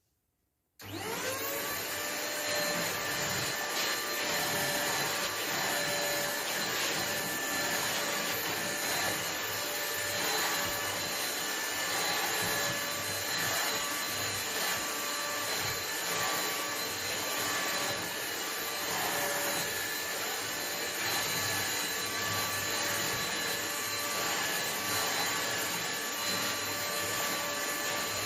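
Electric vacuum cleaner switched on about a second in, its motor quickly spinning up to a steady whine and then running steadily while it sucks up spilled bread crumbs from a seat.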